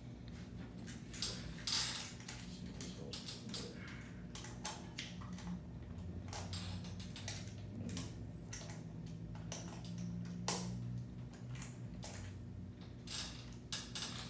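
Scattered small clicks and knocks of metal parts as the pylon of an above-knee prosthetic leg is adjusted by hand, over a low steady hum.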